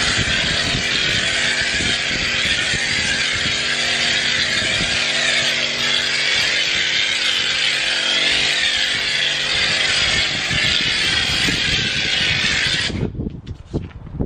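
Pressure washer running steadily, its pump motor humming under the hiss of spray from a snow foam lance as a car is foamed. The spraying stops about thirteen seconds in.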